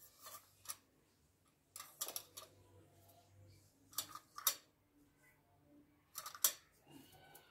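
Light kitchen handling sounds: a spoon and spice containers clicking and tapping in short, irregular clusters as spices are spooned onto wheat flour in a steel bowl. The loudest knocks come about four and a half and six and a half seconds in.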